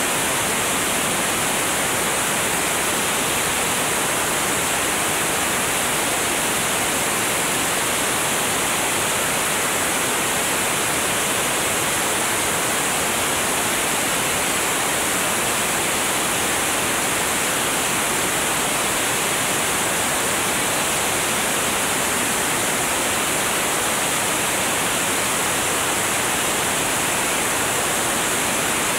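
Steady rush of airflow over a camera mounted under the wing of a light aircraft in flight, an even hiss with no clear engine or propeller tone.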